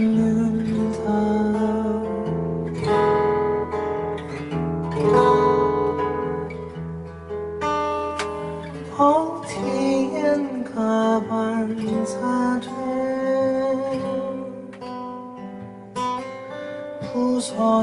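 A man singing live to his own acoustic guitar accompaniment, with long held notes.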